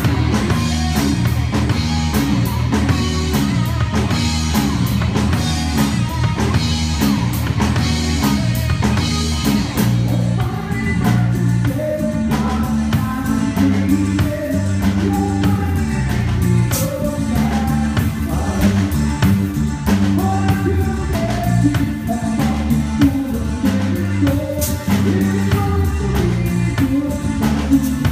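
Live rock band playing a song, with drum kit, guitar and a singing voice, heard from the stage through the band's monitor speakers.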